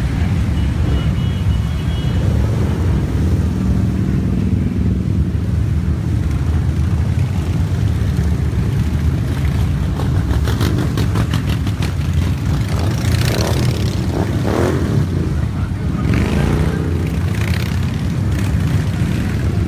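A column of large cruiser motorcycles riding past in a steady, loud low rumble, with individual bikes revving up and down as they go by in the second half.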